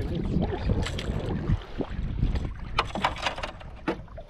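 Wind rumbling on the microphone and water lapping against the side of a canoe, with a few short, sharp splashing sounds about a second in and again around three seconds in.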